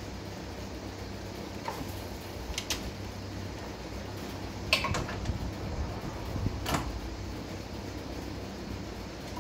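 A few sharp metallic clinks and knocks, four or five spread out, from parts and tools being handled while a generator is put back together. Under them runs a steady low mechanical hum.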